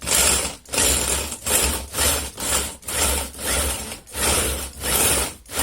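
Electric drill driving a grinder that is crushing whole crabs: a grinding, crunching noise that pulses a little over twice a second over the drill motor's hum.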